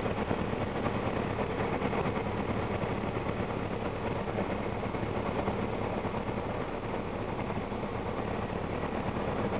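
Cabin noise of an EMB-712 Tupy (Piper Archer II) in flight. Its four-cylinder Lycoming O-360 engine and propeller drone steadily, mixed with airflow hiss.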